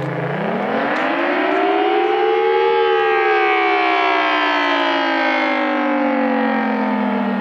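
Federal Signal Thunderbolt 1000T mechanical outdoor warning siren sounding the attack signal, a rising and falling wail. Its pitch climbs for about two and a half seconds, then falls slowly for the rest.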